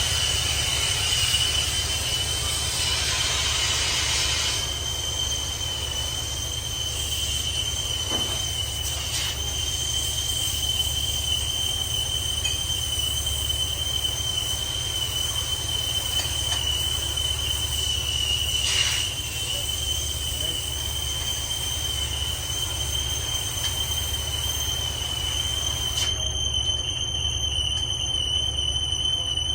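Heavy boring machine cutting a steel pipe: a steady high-pitched squeal over a low machine hum.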